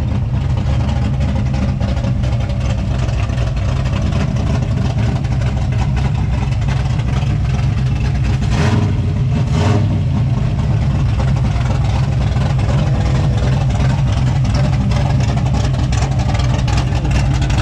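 Muscle car engine running loudly and steadily, a deep low rumble with no clear revving up or down.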